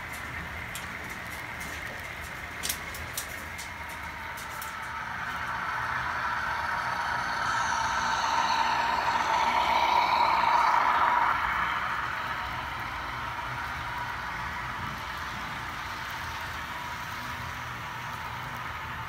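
HO scale model freight train running on the track. The running noise swells as a CN Dash 8 diesel locomotive model passes close by, loudest about eight to eleven seconds in, then fades as the freight cars roll past. Two sharp clicks come about three seconds in.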